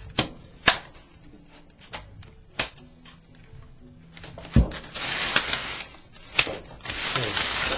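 Sharp clicks and taps of metal banjo hardware being handled as the hooks are set on the rim, a few scattered strokes with the loudest about halfway through, then two short stretches of scraping and rubbing near the end.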